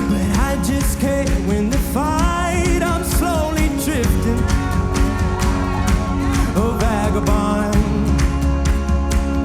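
A worship song playing as background music, with a steady beat, bass and a melody line that slides with vibrato.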